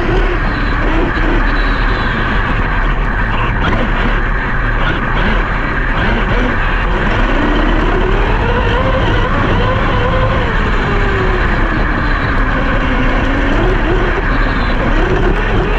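Brushless electric motor of a large RC monster truck whining, its pitch rising and falling with the throttle over a steady rushing noise.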